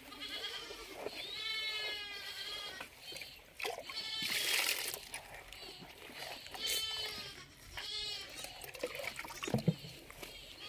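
An animal bleating: several wavering calls, the longest about a second and a half in, more near the middle and around eight seconds. A noisy splashing burst about four seconds in, from wet feed being mixed in a tub.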